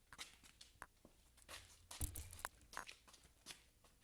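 Handling noise of a BMX bike being turned around: scattered light clicks and rattles, with one heavier thump about two seconds in.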